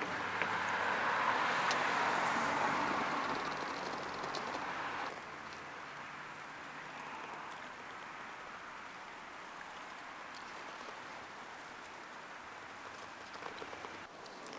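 Outdoor background noise: a steady hiss, louder for about the first five seconds and then dropping suddenly to a fainter hiss, with a few faint clicks near the end.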